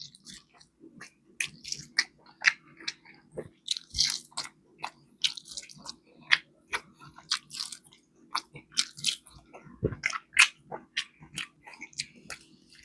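A person chewing and biting food close to the microphone, with many short, sharp crunches and mouth clicks at an uneven pace. A faint steady hum runs underneath.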